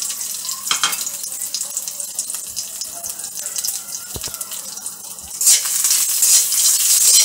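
Whole spices, among them cumin, panch phoron, bay leaf, dried red chilli, cardamom and cinnamon, sizzling and crackling in hot mustard oil in an aluminium kadai. The sizzle gets clearly louder about five and a half seconds in.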